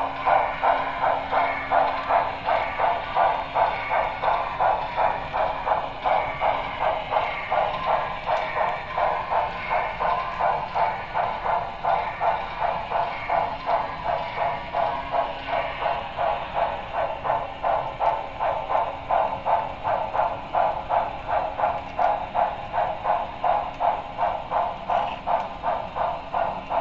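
Sound system of an HO-scale Broadway Limited Paragon 3 2-10-4 model steam locomotive playing steady exhaust chuffs through its small onboard speaker, about two a second, with a faint steady hum beneath.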